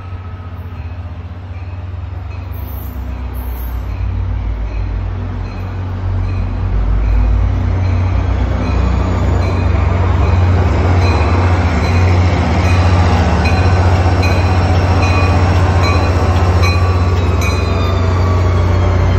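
NJ Transit diesel locomotive pulling into the station, its low engine rumble growing steadily louder as it draws close and passes alongside the platform. A high ding repeats about every two-thirds of a second throughout.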